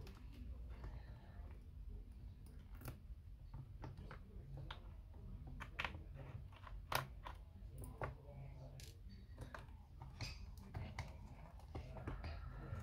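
Irregular sharp clicks and taps of small tools and parts being handled while taking apart an Apple Time Capsule, over a steady low hum.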